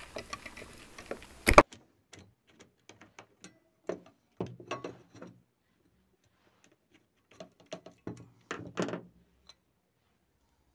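Irregular sharp clicks and knocks of a screwdriver working at the finned metal heat sink on a water purifier's plastic reservoir, digging out the resin over its screw and loosening it. A single loud click comes about a second and a half in, with groups of knocking around four to five seconds and again around eight to nine seconds.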